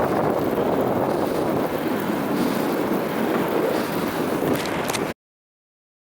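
Wind buffeting the microphone of a camera on a moving bicycle: a steady rushing noise that cuts off abruptly to silence about five seconds in.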